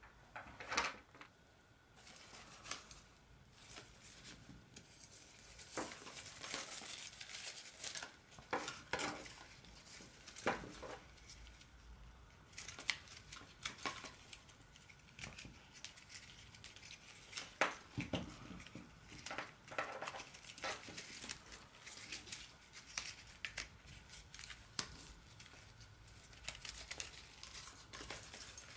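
Hands handling a braided latex clothesline and stuffing it into its mesh pouch: irregular soft rustling and rubbing with scattered sharp clicks, busier near the end.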